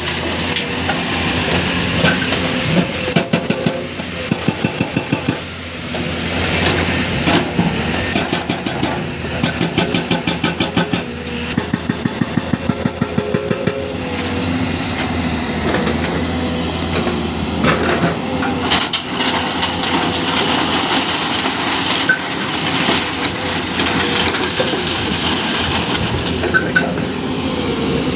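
Komatsu PC210 excavator's hydraulic breaker hammering rock in several bursts of rapid, evenly spaced blows, about six a second, over the steady running of the diesel engine.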